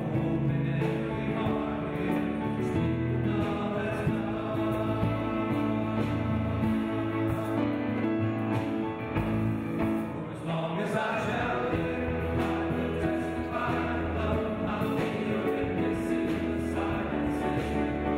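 Live Christian worship song: a male singer with piano and band, and a crowd of men singing along.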